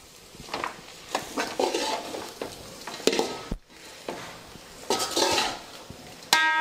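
A perforated steel ladle stirring and scraping soaked puffed rice around a large aluminium pan, in a run of separate wet scraping strokes. Near the end the metal gives a short ring.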